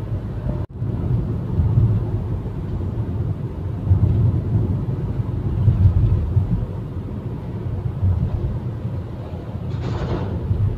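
Steady low road and engine rumble heard from inside a car cruising on a highway. The sound drops out for a moment a little under a second in, and a brief rushing hiss comes near the end.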